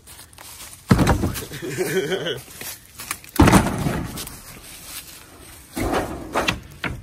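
Heavy thuds and bangs: a loud one about a second in, another about three and a half seconds in, and a smaller one near the end.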